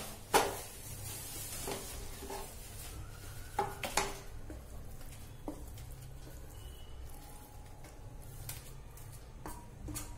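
Slotted spatula scraping and knocking against a non-stick frying pan as a thick, crumbly kalakand mixture is scraped out into a paper-lined tray. There are a few sharp clinks, the loudest about half a second in and about four seconds in, over a low steady hum.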